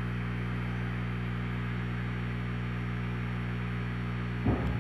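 Steady electrical mains hum with a faint hiss. A short low sound comes about four and a half seconds in.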